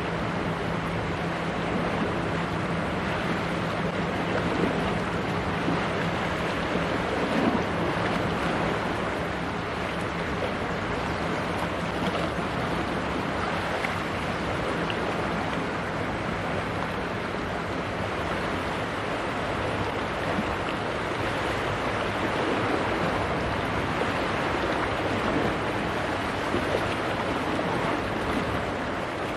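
Wind on the microphone and choppy sea water, a steady rushing noise. A steady low hum shows under it for the first several seconds and then fades.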